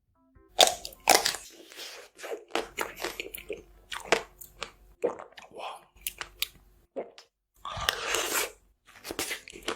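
Close-miked crunchy bites and chewing of food, with crackling crunches throughout; two loud bites come about half a second and a second in.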